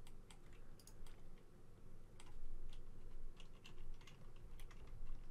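Computer keyboard keys pressed one at a time, numeric keypad included, as shortcut presses: scattered, irregular clicks.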